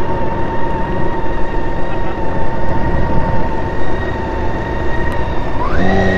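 Motorcycle riding noise: a steady low rumble of engine and wind on the rider's microphone, with a steady high whistle that glides up in pitch near the end.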